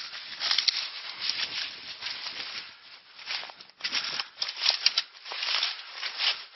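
Dry dead grass and brush rustling and crackling in irregular bursts, about two a second, as someone walks through it on foot.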